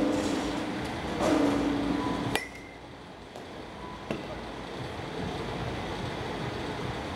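A sharp metallic clink about two and a half seconds in, ringing briefly after the hit, and a fainter knock a second and a half later, over steady batting-cage background noise. Before the clink, a low steady droning tone sounds twice and is the loudest thing heard.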